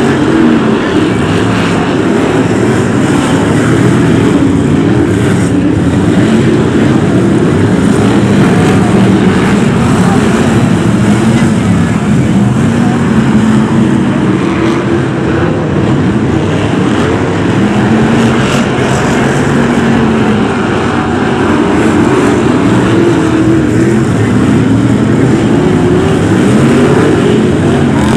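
A pack of BriSCA F1 stock cars' V8 racing engines running hard, a loud continuous drone. The engine pitches keep rising and falling as cars pass and accelerate out of the bends.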